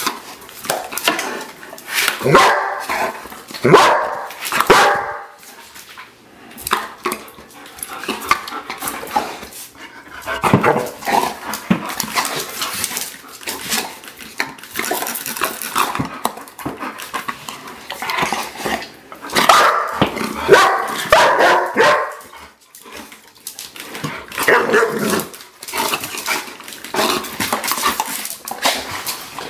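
German Shepherds barking excitedly in play, in several loud bouts of rapid barks with short pauses between.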